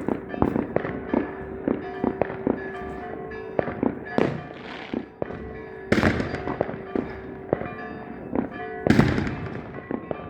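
Fireworks going off: a rapid, irregular run of sharp bangs and crackles, with two big bursts about six and nine seconds in, each trailing off in a crackling hiss.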